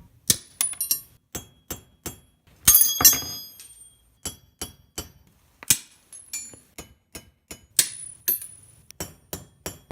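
Irregular sharp metallic taps and clinks, about two a second, several leaving a brief high ring, with a cluster of louder strikes about three seconds in: small metal parts being struck or knocked together at the bench.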